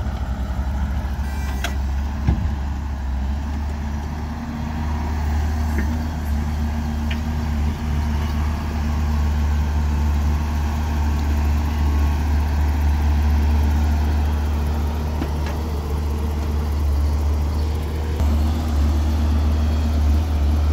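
Heavy diesel engines running steadily: a Nissan Diesel dump truck driving slowly forward beside a Hyundai wheeled excavator, with a couple of short knocks about two seconds in.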